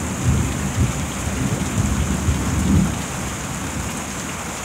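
Rain falling steadily, with a low uneven rumble during the first three seconds that then dies down.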